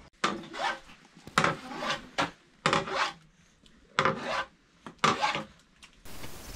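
Hand saw cutting wood in short, irregular back-and-forth strokes, a dozen or so, cutting off abruptly near the end.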